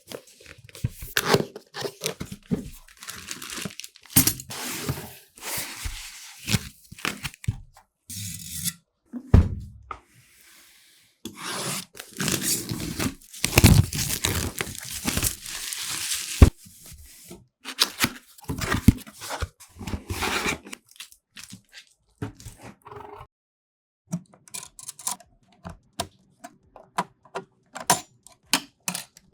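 Close-up handling of PC parts and their packaging: plastic and cardboard tearing and crinkling, mixed with irregular clicks, taps and knocks.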